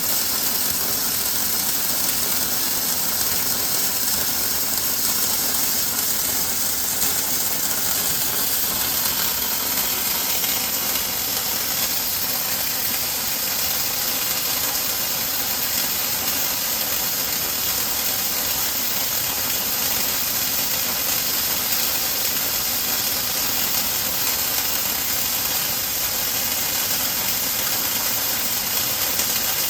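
Two welding torches arc welding a turning conveyor roller on a weld-lathe, giving a steady, unbroken hiss with the machine's running underneath.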